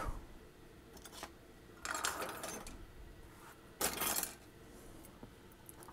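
Quiet handling noises of small hand tools on a workbench: a faint tick, then two short bursts of rustling and light clatter, about two and four seconds in.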